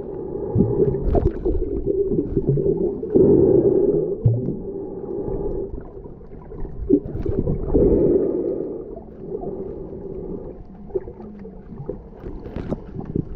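Muffled underwater noise from a camera held beneath the surface: a low, dull rushing of water that swells roughly every four seconds, with small clicks and knocks scattered through it.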